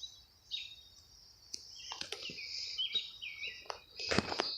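Small birds chirping with short, quick calls, mixed with a few sharp clicks and knocks, the loudest of them bunched together a little after four seconds.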